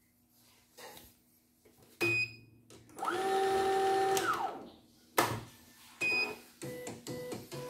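CNY E900 embroidery machine beeping as its button is pressed. Its motor then whirs up, runs steadily for about a second and winds down. A sharp click and a second short beep follow.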